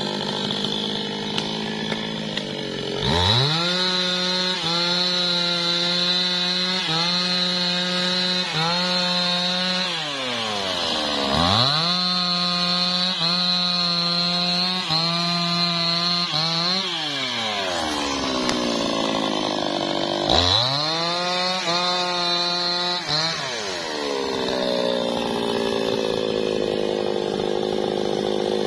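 Maestro MT 6500 two-stroke chainsaw revved to full throttle three times to cut wood, each cut lasting several seconds, dropping back to idle between cuts.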